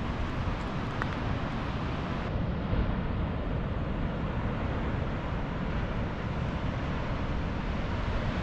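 Wind rumbling on the microphone: a steady, low roar with some hiss over it.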